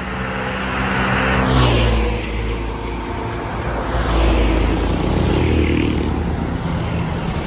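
Road traffic going past: vehicle engines with a steady low rumble, two vehicles passing close by, one about a second and a half in and another around four to five seconds in, each swelling and falling in pitch as it goes by.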